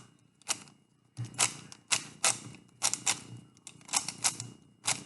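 Plastic Rubik's Cube layers clacking as they are turned by hand during a solve: a quick, irregular run of sharp clicks, about two to three a second.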